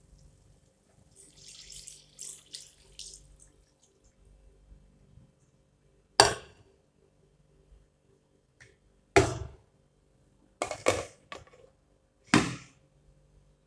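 Water poured into a hot pan of liver, a soft splashing hiss for a couple of seconds. Then several sharp clanks of cookware, the last one a glass lid set down on the pan near the end.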